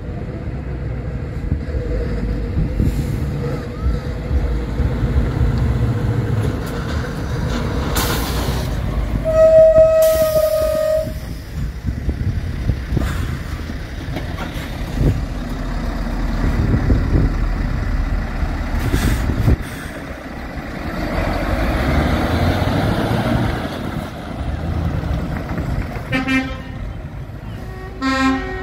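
Heavy lorry diesel engines rumbling as trucks pull out and drive past, with a short hiss about eight seconds in and a horn sounded for about a second and a half shortly after. Near the end a horn gives a run of short toots.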